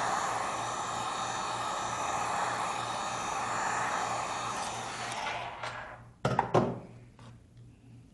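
Heat gun blowing steadily while it warms the screen adhesive, then switched off about five seconds in, its rush fading away; a short cluster of hard knocks follows about a second later.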